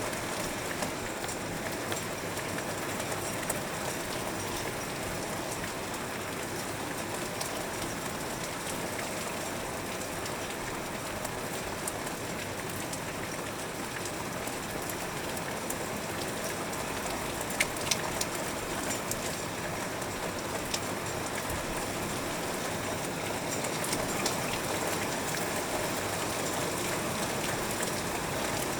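Heavy rain falling steadily, with raindrops pattering on a window pane; a few sharper drop ticks stand out a little past the middle.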